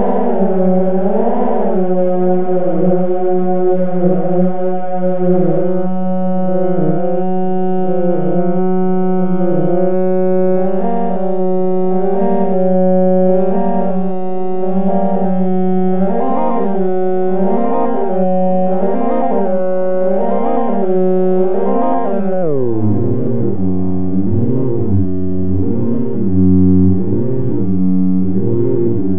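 Drones from the DIN Is Noise software synthesizer: a chord of sustained electronic tones with a slow, regular wobble about every second and a half. About 22 seconds in, the whole chord slides down in pitch and keeps wobbling at the lower pitch.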